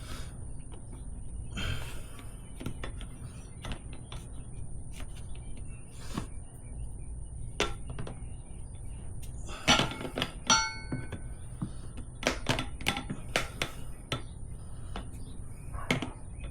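Tire levers clinking, knocking and scraping against a motorcycle wheel rim while working a tire bead on by hand, with a run of sharp metal knocks and a brief metallic ring about ten seconds in.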